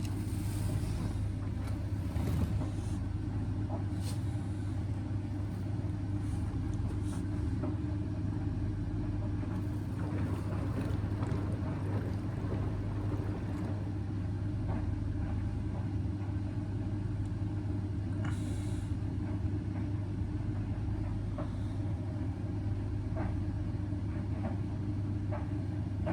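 Indesit washing machine tumbling its drum during an 85-degree baby-cycle wash: a steady low motor hum with faint swishes and clicks from the load.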